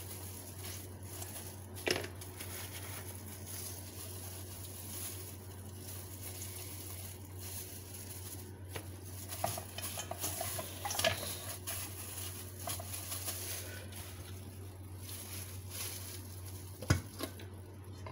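Sliced pork being mixed by a gloved hand in a stainless steel bowl: soft wet squishing and small clicks against the bowl, busiest around the middle. There are a couple of sharp knocks against the bowl, the loudest near the end, over a steady low hum.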